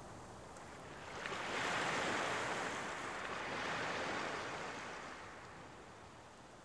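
A rushing, wind-like noise that swells about a second in, peaks twice and then fades away.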